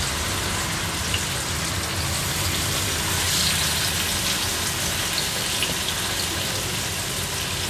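Masala-coated black pomfret slices sizzling and crackling steadily as they shallow-fry in hot oil on a tawa over a high gas flame. The sizzling swells a little about three to four seconds in, as a third slice goes into the oil.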